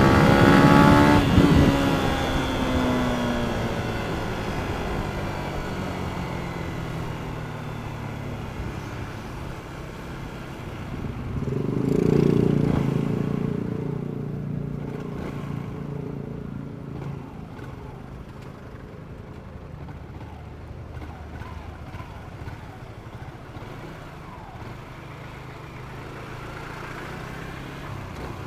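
Yamaha Jupiter MX King 150 single-cylinder underbone motorcycle on its stock exhaust passing close at the start. Its engine note falls in pitch and fades as it rides away. Another vehicle swells past about twelve seconds in, followed by quieter traffic noise.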